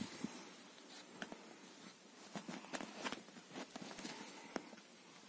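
A cat pawing and clawing a small spiky ball on a fabric bedspread: faint, irregular scratches and ticks.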